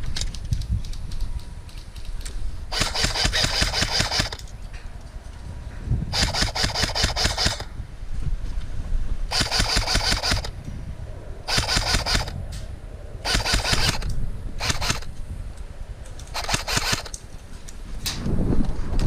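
Airsoft guns firing on full auto: about eight bursts of rapid mechanical clicking, each lasting from half a second to a second and a half, a second or two apart, over a steady low rumble.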